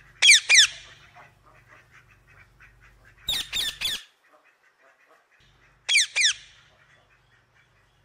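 Toucan calling: loud, sharp yelps that slide steeply down in pitch. There are two near the start, three in quick succession about three seconds in, and two more about six seconds in.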